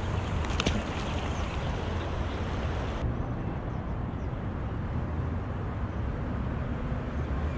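Wind rumbling on the microphone over the rush of a shallow, stony river, with a few sharp clicks less than a second in. About three seconds in the hiss of the water drops away and a steady wind rumble carries on.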